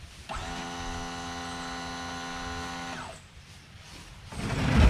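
Electric hydraulic pump motor of a truck liftgate running with a steady, even hum for about three seconds as it lifts a steel fuel tank, then cutting off. Near the end comes a louder, rumbling thump.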